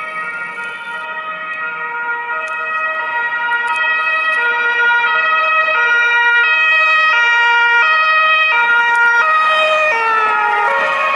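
German police two-tone siren (Martinshorn) alternating between a high and a low note about every two-thirds of a second, growing louder as it approaches. About ten seconds in, its pitch drops as the vehicle passes close by.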